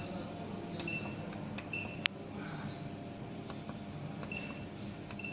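Steady low hum of running machinery, with short faint high blips recurring about once a second and a single sharp click about two seconds in.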